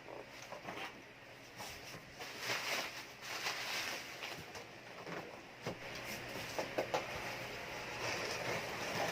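Packaging being handled: crinkling and rustling of plastic and bubble wrap with scattered light knocks and clicks from the cardboard box.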